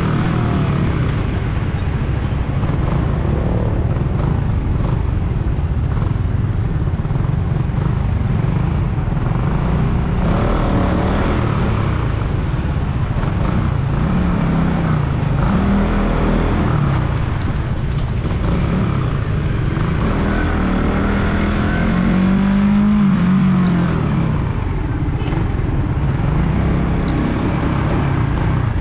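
Suzuki Raider 150 Fi's single-cylinder engine running under way, its note rising and falling several times as the throttle opens and closes.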